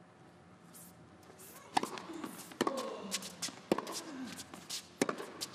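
Tennis rally on an indoor hard court: racket strikes on the ball, four sharp hits roughly a second apart, with lighter clicks and short squeaks between.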